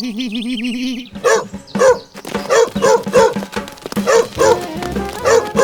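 A dog barking repeatedly, about two barks a second, over background music. A wavering, warbling tone fills the first second.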